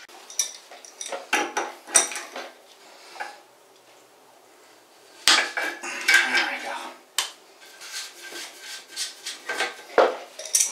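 Channel-lock pliers and a wrench clinking and scraping against a plastic flush-valve nut and the porcelain tank, in irregular clatters with a lull about four seconds in, as the cross-threaded nut is worked loose.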